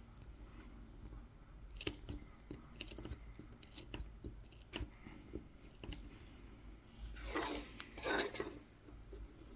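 Tip of a Mora 106 carving knife cutting fine lines into the wood of a spoon for kolrosing: scattered small ticks and short scratches, then two longer scratching cuts about seven and eight seconds in.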